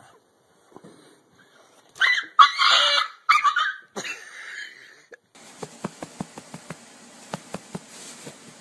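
A small dog whining and yelping in short, loud outbursts between about two and four seconds in. After an abrupt change a little past five seconds, a faint steady hiss with a run of light clicks.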